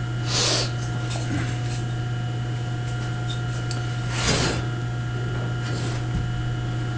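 Steady low hum with faint steady tones above it, and two brief soft hissing rubs, one about half a second in and one about four seconds in.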